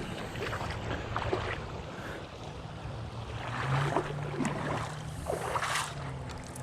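Shallow creek water rushing and splashing, with a few light knocks.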